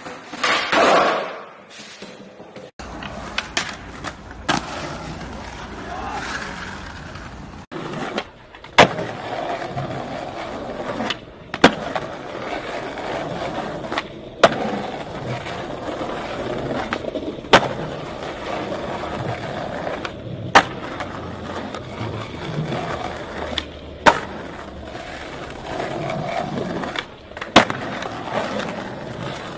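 Skateboard wheels rolling on smooth flat ground, with a sharp clack every few seconds as the board's tail and wheels strike the ground during tricks.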